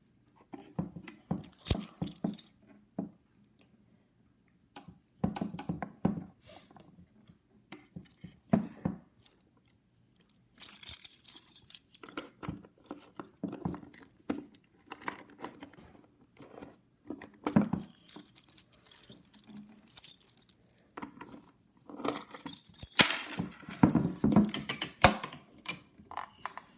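Keys jangling and clicking as a key is worked in the lock of a Melissa & Doug wooden doorbell house toy, with irregular knocks of its wooden parts being handled. The clatter comes in scattered bursts, densest and loudest near the end.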